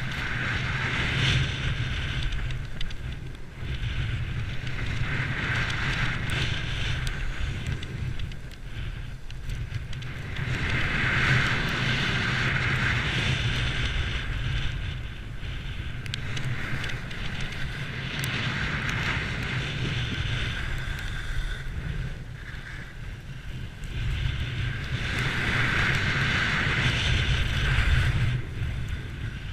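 Skis hissing and scraping over packed snow, swelling and fading every few seconds with the turns, over a steady low rumble of wind buffeting the microphone.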